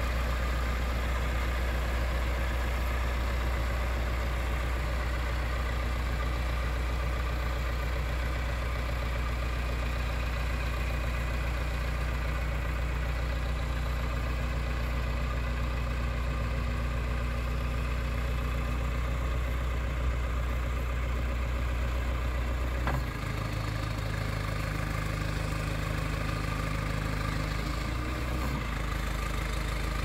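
John Deere backhoe loader's diesel engine running steadily while the loader and backhoe are worked; its note changes about two-thirds of the way through and again near the end.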